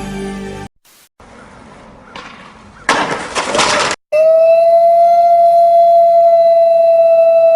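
Music cuts off, then a loud crash of about a second, then after a short pause a loud, steady high beep held for about three and a half seconds that stops abruptly.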